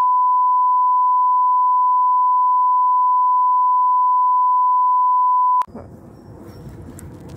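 A steady 1 kHz test-tone beep, the reference tone that goes with colour bars, held at one pitch and loud for over five seconds, then cut off suddenly. Quieter outdoor background noise follows near the end.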